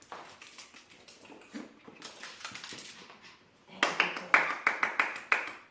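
A dog making a run of quick, rhythmic rasping sounds, about five a second, louder in the last two seconds.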